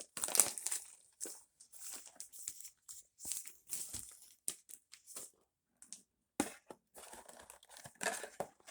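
Crinkling and rustling of trading-card pack wrappers and cards being handled, in short irregular bursts with brief pauses.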